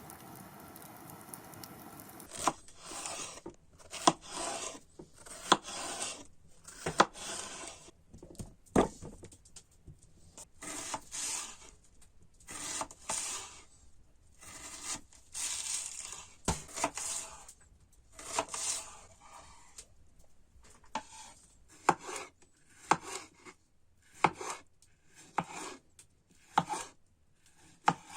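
Hand tool working wood: a run of rasping scraping strokes, about one a second, many starting with a sharp click, shortening into quicker, sharper strokes later on.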